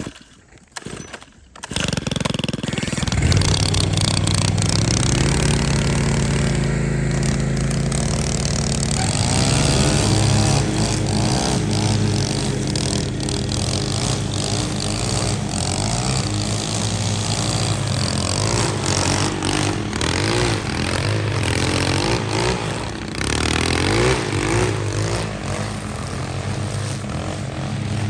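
A lawn mower engine starts about two seconds in and runs steadily. Its pitch steps up about a second later and again near nine seconds as it is throttled up.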